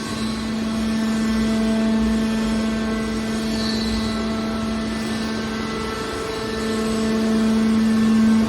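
Scrap car baler's hydraulic power unit running: a steady mechanical drone with a pitched hum over low rumble, growing a little louder near the end.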